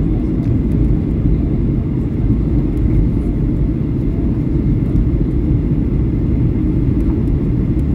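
Steady low rumble of in-flight cabin noise aboard a Boeing 737-800, from its CFM56-7B turbofan engines and the airflow over the fuselage, heard from a window seat over the wing.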